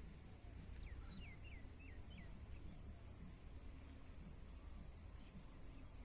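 Faint outdoor ambience: insects chirping high-pitched, in pulses that later merge into a steadier trill. About a second in, a bird gives a quick run of about five short sweeping notes, all over a low steady rumble.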